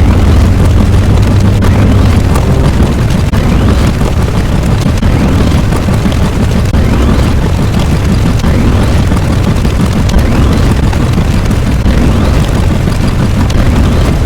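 Explosion sound effects layered into one continuous, loud, deep rumble with no break, faint rising whistles running through it.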